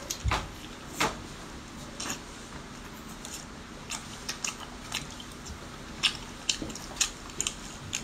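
Close-miked eating sounds: biting into skewered spicy seafood and chewing it, with wet smacks and clicks coming at irregular intervals.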